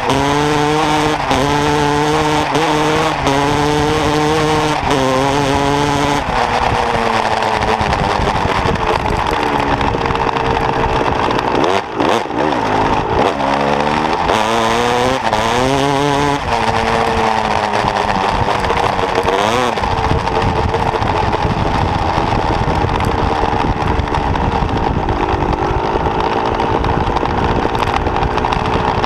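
KTM 250 SX two-stroke motocross bike engine under hard throttle, revs climbing and dropping back as it shifts up through the gears about once a second. The revs fall away briefly about twelve seconds in, climb again, then hold fairly steady at speed.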